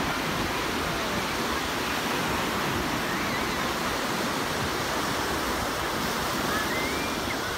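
Ocean surf breaking and washing up a sandy shore: a steady hiss of waves. Faint distant shouts rise above it about three seconds in and again near the end.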